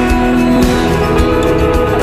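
Country music: an instrumental, guitar-led passage between sung lines, with a steady beat.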